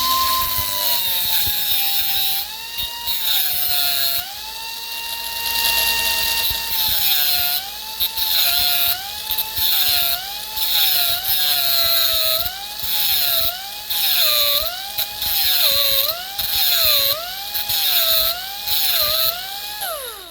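Right-angle die grinder whining at high speed while grinding the steel blade teeth of a hedge trimmer to sharpen them. Its pitch dips and recovers about once a second as it is pressed against each tooth, with a grinding hiss on each pass, then it winds down at the end.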